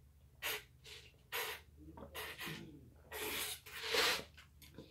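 A person gulping a drink from a cup: several noisy swallows about a second apart, then a longer, louder breathy gulp near the end.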